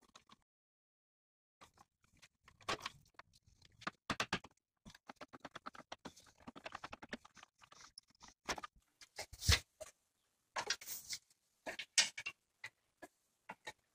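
Hand tools on the condenser mounting bolts of a 2004 Toyota Sienna: a ratchet clicking in quick, even strokes, with scattered metal clinks and rattles. Several sharper knocks come near the end as the A/C condenser is worked loose.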